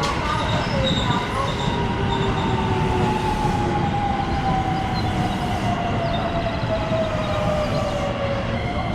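Electric commuter train running through the station and slowing. Its whine slides steadily down in pitch over the rumble of wheels on rails.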